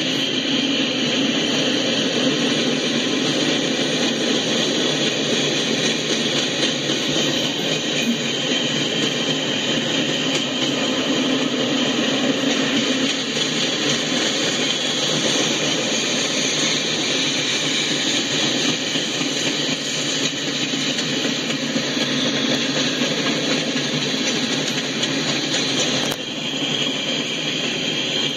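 Freight cars (boxcars and covered hoppers) rolling past on the rails with a steady, continuous rumble and rattle of wheels. The sound comes from a live railcam stream playing on a screen.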